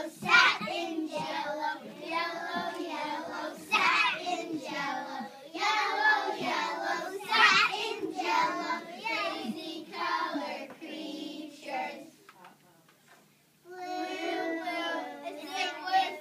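A group of young children singing together. The singing stops for about a second and a half roughly three-quarters of the way in, then starts again.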